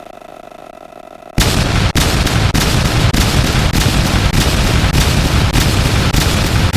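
Bowling-pin crash sound effect layered many times over, heavily distorted into a dense, deafening crash with sharp hits about every half second. It starts suddenly about one and a half seconds in, after a quieter steady hum.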